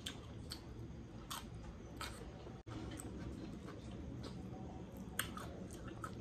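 Close-up eating sounds: a person chewing smoked pork and rice with the mouth closed, with scattered soft wet clicks and fingers mixing rice and curry on a plate. The sound drops out for an instant a little under halfway through.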